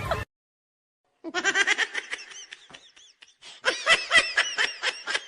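A person laughing in rapid, high-pitched bursts of "ha-ha" pulses, starting about a second in after a moment of silence. The laugh breaks off briefly about halfway through, then resumes as a quick run of repeated pulses that spaces out near the end.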